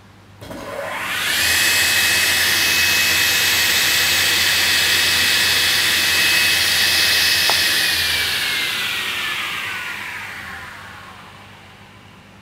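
Altendorf F45 sliding table saw switched on: the saw blades spin up with a rising whine over about a second, then run at a steady high whine with a hiss of air. A click comes about seven and a half seconds in, and then the whine falls in pitch and fades as the blades wind down to a stop.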